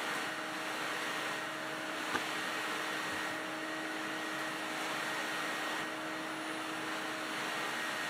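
A 1970s–80s Electrolux Ultralux canister vacuum cleaner running steadily, with the rush of air at the hose over a shag rug and a constant motor whine over it. There is one small click about two seconds in.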